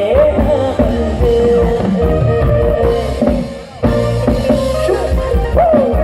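Amplified Isan mor lam music: a drum kit keeps a steady beat under a melody line that bends up and down, with a brief drop in the music about three and a half seconds in.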